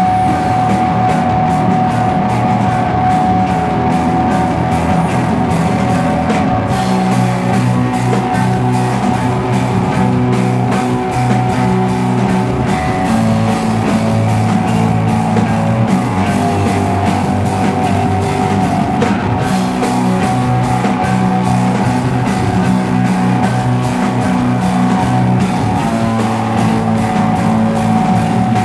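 Live slowcore/noise rock band playing an instrumental passage: electric guitars, bass and drum kit, with one high sustained note held throughout over shifting low chords.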